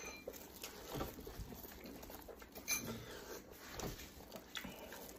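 Close-up chewing and smacking of a mouthful of meat, with scattered short clicks as gloved hands pull meat and bone apart on a cooked sheep's head.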